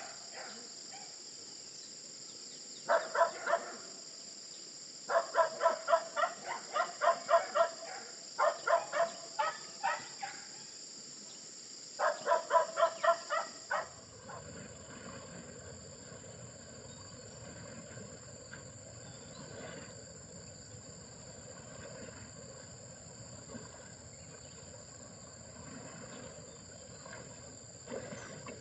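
Insects droning steadily and high, while for the first half an animal calls in clusters of short, pitched notes repeated several times a second. About halfway in the calls stop and a low rushing noise starts suddenly.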